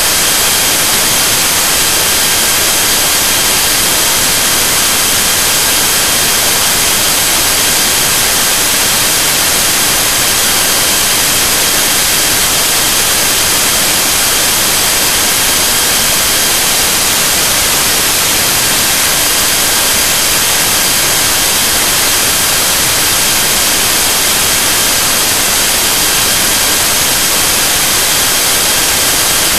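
Loud, steady hiss like static, unchanging throughout, with faint thin high whining tones held steady underneath.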